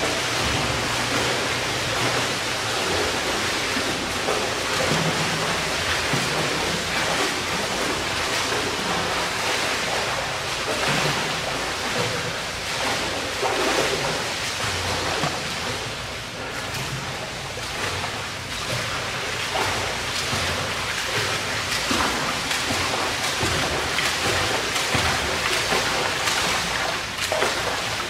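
Steady rushing water noise of an indoor pool, with a swimmer's strokes splashing through the lap.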